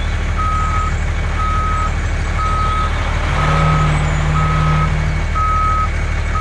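Truck reversing alarm beeping steadily, about once a second, over a low engine drone. A deeper steady tone joins for about two seconds in the middle.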